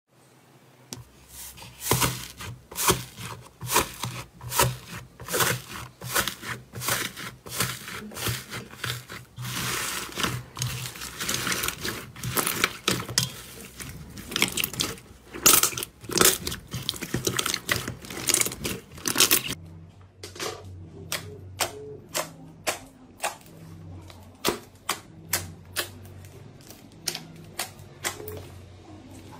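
Slime being squished and kneaded by hand, giving rapid wet clicks and pops of trapped air. About two-thirds of the way through, the clicks turn sparser and more evenly spaced.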